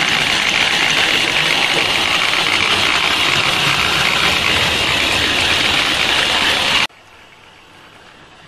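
Model steam locomotive running close past the microphone, its electric motor whirring and wheels rattling on the track in a loud, even noise. It cuts off abruptly about seven seconds in, leaving a much fainter running sound.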